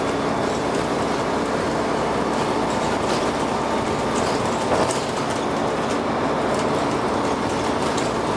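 Dennis Arrow bus on the move, heard from inside: steady engine and drivetrain noise with body rattles and a few sharp knocks.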